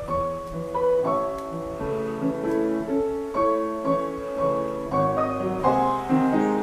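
Solo piano music: a Cuban classical piano piece, melody over chords.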